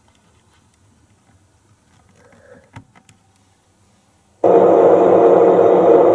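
Model diesel locomotive's electronic sound system cutting in abruptly about four and a half seconds in with a loud, steady engine drone, after near quiet with one faint click.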